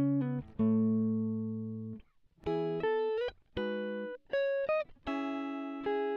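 Background music on a plucked guitar: chords struck about once a second or so, each ringing and fading, with a few short melody notes in between.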